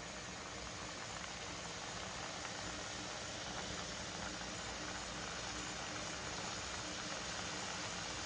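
Dough pieces for mobile misti deep-frying in hot oil, a steady sizzle and bubbling that grows slightly louder.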